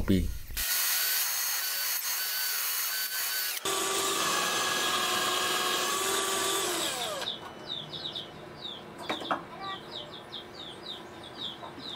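Cordless drill boring through a thick wooden board, running steadily for several seconds, then its pitch falling as it winds down about seven seconds in. After that, birds chirping a few times a second.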